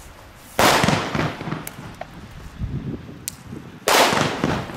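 Two Xplode Superbella firecrackers going off about three seconds apart, each a sharp bang tailing off over about half a second, with a couple of small sharp pops between them.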